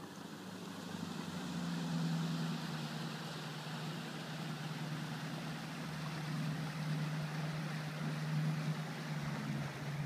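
Motorboat engine running at speed as the boat passes, a steady low drone over a hiss, growing louder over the first two seconds and then holding.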